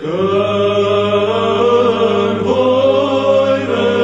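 Orthodox church chant as background music: voices holding long notes over a steady low drone, the melody shifting pitch about halfway through.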